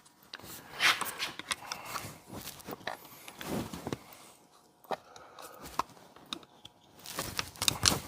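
Handling noise of a rubber grommet and intake boot being pushed and worked into a chainsaw's plastic handle: irregular scrapes, rubs and small clicks.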